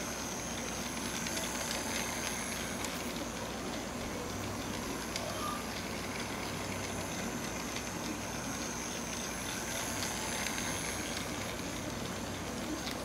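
Battery-powered toy Taiwan High Speed Rail train running round a plastic track loop: the steady whir of its small motor and gears, with light ticks from the wheels on the track. It grows a little louder twice as it passes nearer.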